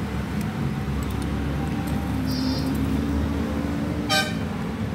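Steady low engine rumble, as of vehicles running nearby. A short high tone comes about two and a half seconds in, and a brief sharp ringing sound about four seconds in.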